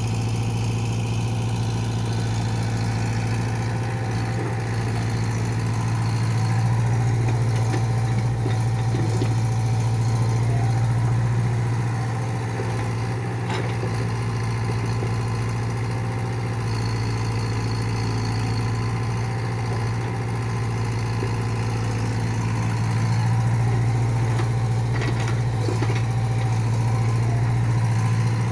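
An engine running steadily with a low, even hum, and a few faint knocks now and then.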